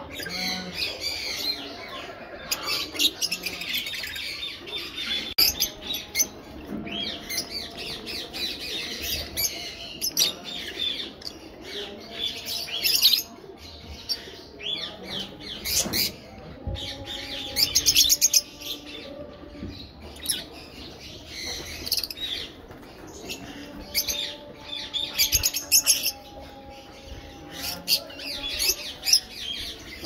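Lovebirds chirping and squawking in rapid, repeated bursts of calls.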